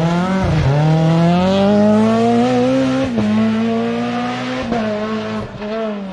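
Renault Clio rally car's four-cylinder engine pulling hard under full throttle, its pitch climbing and dropping sharply at quick upshifts about half a second and three seconds in, then falling as the driver lifts off near the end.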